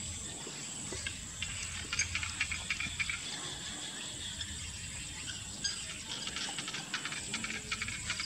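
Dogs chewing and tugging at a plastic bag of food scraps: irregular crinkling and crackling ticks, thickest about two to three seconds in and again near the end.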